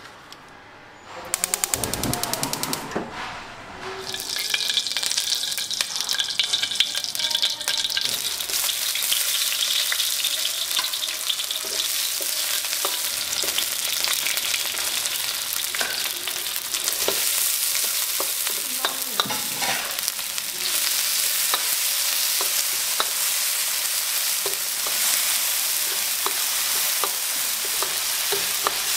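Green beans, carrots and shallots sizzling in hot oil in a wok, with small clicks and scrapes of the spatula as they are stirred. A quick run of clicks comes about a second and a half in, and the steady sizzling sets in about four seconds in.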